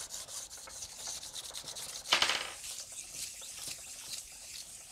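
400-grit sandpaper rubbed by hand back and forth over the flat metal base of a Curtis motor controller, a steady gritty scraping with one louder stroke a little after two seconds in. It is knocking down raised nicks and high spots so the chill plate sits flush.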